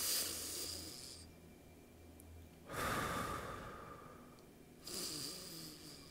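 Three deep breaths taken in succession as a layered breathing exercise, each a rush of air lasting a second or more. The first and last carry a thin high whistle from a congested nose.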